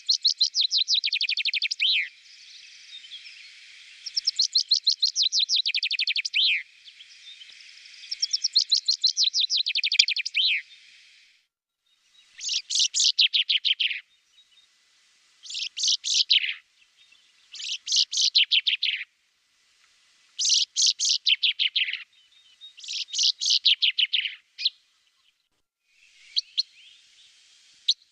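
Common chaffinch singing: about eight song phrases in a row, each a fast trill of repeated notes that drops in pitch and ends in a short flourish, with brief pauses between. A few short single notes come near the end.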